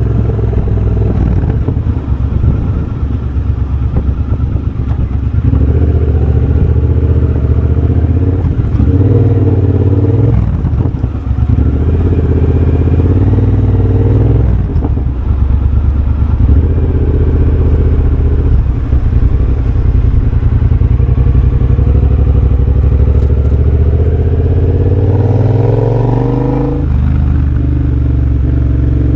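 2023 Triumph Bobber's 1200 cc parallel-twin running through a de-catted X-pipe and Motone shorty exhaust while riding on the road. The engine note rises and falls with throttle and gear changes, with brief drops in revs twice in the middle and a climb in revs near the end.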